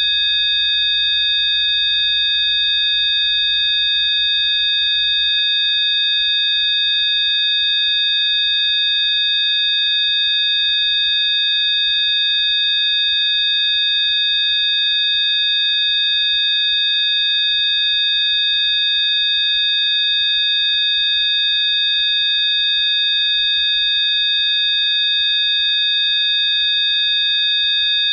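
Rife frequency tones: several pure, high electronic tones sounding together as one steady chord, unchanging throughout.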